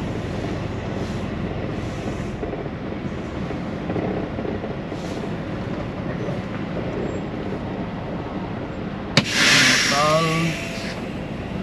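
Semi truck's diesel engine idling, heard from inside the cab. About nine seconds in, a sharp click and then a loud hiss of air lasting about a second and a half: the air parking brakes being set.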